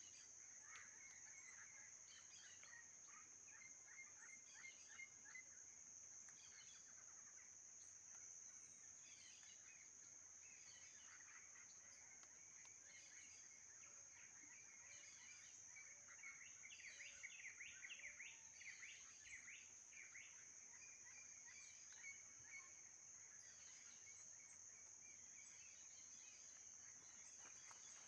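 Faint savanna ambience: a steady high-pitched insect drone under scattered bird calls, with a fast run of chattering bird notes a little past the middle.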